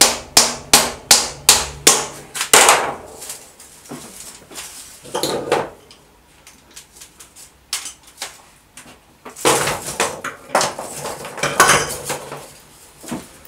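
Quick, even knocks on a thin bentwood sieve hoop struck with a thin wooden rod, about three a second for the first two seconds or so. After that, irregular wooden clattering and rubbing as thin bent wooden hoops are handled, loudest after the middle.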